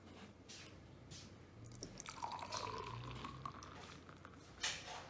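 Beer poured from an open can into a glass, the pour splashing and gurgling into the glass from about two seconds in. A short louder noise follows near the end.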